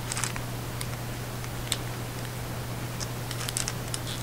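Light, scattered crinkles and clicks of a cellophane gift bag being handled, over a steady low hum.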